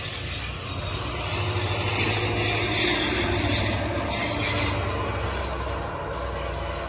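GO Transit bilevel passenger train passing close by: a steady run of wheels on rails, with the low hum of the diesel locomotive pushing at the rear underneath it.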